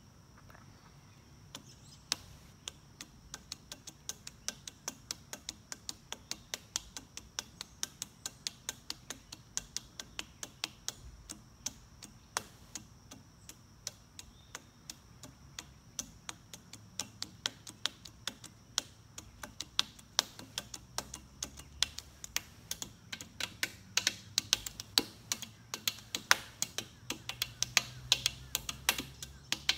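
Sharp, irregular ticks or taps, a few a second, starting about a second and a half in and growing denser and louder toward the end.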